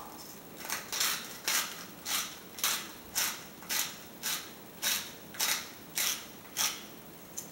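Hand-twisted salt grinder milling salt: about a dozen short, dry grinding rasps at roughly two a second, stopping shortly before the end.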